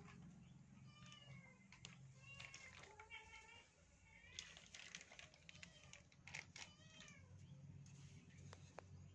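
Faint, short, high-pitched animal calls, repeated every second or so and sometimes in quick runs, some falling in pitch, over a low steady hum.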